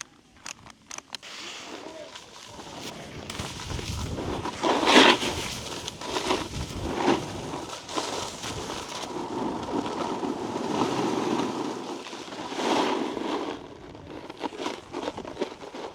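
Snowboard scraping and hissing over icy, slushy snow while riding downhill, with three louder scrapes as the board turns or checks speed. A few sharp clicks come just before the riding starts.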